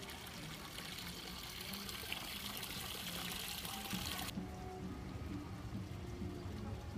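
Water running and splashing from a small stone fountain spout: a steady hiss that cuts off suddenly about four seconds in.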